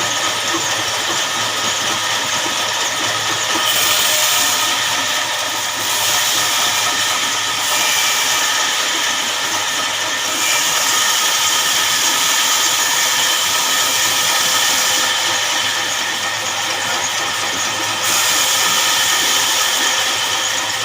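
Horizontal band sawmill running, its band saw blade cutting through a jackfruit log with a steady hiss over the machine's hum. The hiss grows louder for stretches of a few seconds, from about four seconds in and again near the end.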